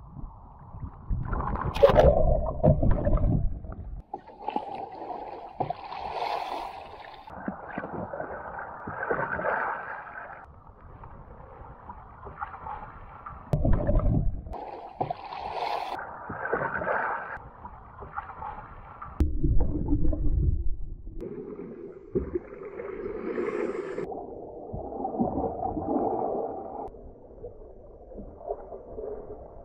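Sea kayak being capsized and rolled back upright with a wooden Greenland paddle, again and again: water splashing, sloshing and gurgling around the hull and paddle, with deep, muffled rushes of water a few times as the deck goes under and comes back up.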